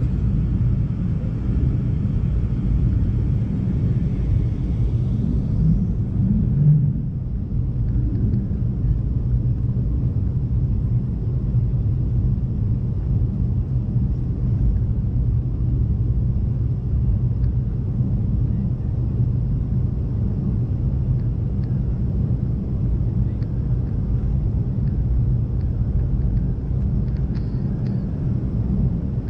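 Steady low rumble of a McDonnell Douglas MD-88 airliner under way, from its twin rear-mounted Pratt & Whitney JT8D-200 engines and airflow. A higher hiss fades out about six seconds in.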